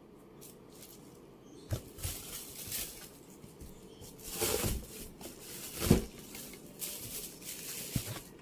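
A cardboard shoebox being handled close to the microphone: a knock about two seconds in, then bursts of rustling that are loudest around the middle, and another knock near the end.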